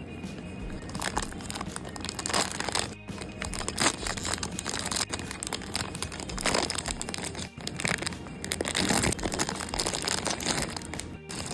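A Pop Mart blind box's packaging being torn open and crinkled by hand: an irregular run of rustling, ripping and sharp crackles.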